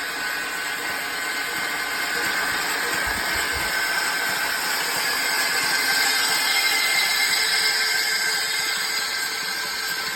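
Mercedes OM642 3.0-litre V6 turbodiesel in a Sprinter 319 running steadily, with a strange knocking and tapping in the engine that the owner is trying to identify.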